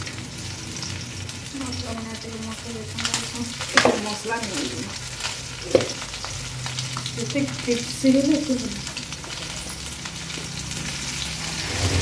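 Marinated small whole fish sizzling steadily as they fry in hot oil in a kadai. A spoon moves the pieces and knocks against the pan twice, about four and six seconds in.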